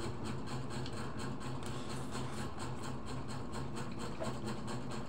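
A small motor humming steadily, with a fast, even flutter over the hum.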